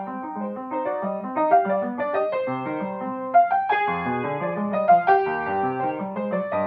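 Upright piano played solo: a fast classical passage of quick running notes in both hands, with a deep bass note struck about four seconds in.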